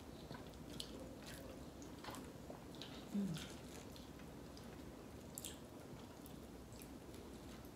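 Faint eating sounds of ripe mango slices being bitten and chewed: scattered soft, wet mouth clicks and squishes. A short low hum from one of the eaters about three seconds in.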